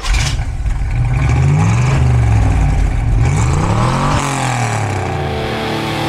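Chevrolet Monza V8 engine revving up and down several times, the pitch rising and falling in repeated sweeps, with the highest rev about four seconds in.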